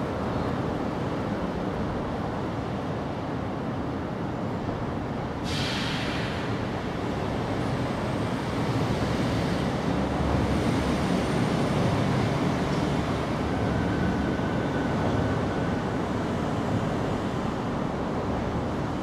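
Steady low rumbling background noise, with a brief hiss about five and a half seconds in.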